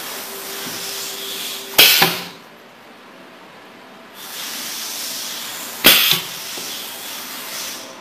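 Desktop pneumatic hot stamping press cycling twice: compressed air hisses for about two seconds, then two sharp metal clacks follow close together as the stamping head moves. After a short quiet the hiss and the double clack come again, and the hiss then fades.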